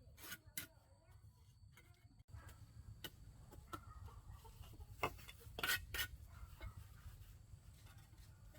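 Chickens clucking quietly, with scattered sharp knocks and clinks, the loudest a few about five to six seconds in.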